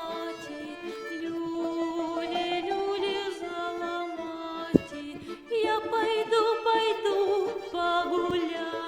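Background music with a singing voice carrying a sustained, wavering melody. A single sharp knock sounds about halfway through, the loudest moment.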